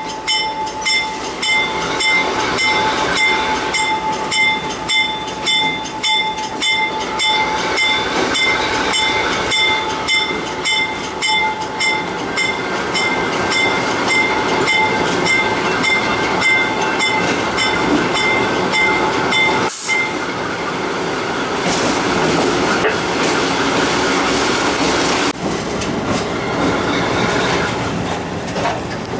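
A locomotive bell rings steadily, stroke after stroke, over the running noise of a GE B23-7 diesel locomotive, then stops abruptly about two-thirds of the way through. After that the locomotive rolls on along the track with steady wheel and rail noise.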